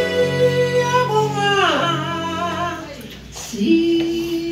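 A woman singing slowly into a microphone, holding long notes: the first slides down partway through, then after a short break she holds a lower note near the end.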